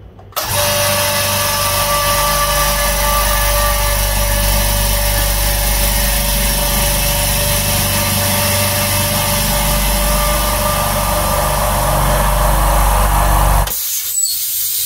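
Hyundai Super Silent oil-free twin-head air compressor starting about half a second in and running steadily, pumping up its empty tank on its first run. The motor stops near the end, followed by a short fading hiss.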